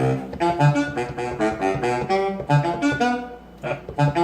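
A beat played back from a Maschine Mikro MK2 groovebox: a saxophone-like sampled melody of short notes over repeating low bass notes, with drum hits keeping a steady pulse.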